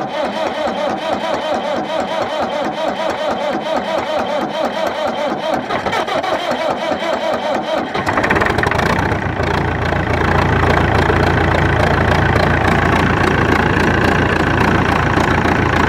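Massey Ferguson 165 tractor's four-cylinder diesel engine being cranked over by the starter in a cold start after glow-plug preheating. It catches about eight seconds in and keeps running steadily.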